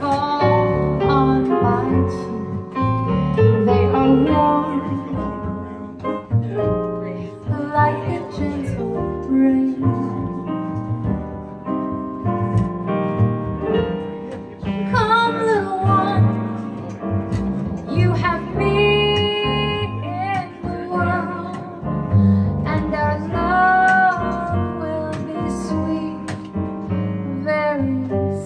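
Live jazz: a woman singing a slow ballad with vibrato on held notes, accompanied by keyboard and upright double bass.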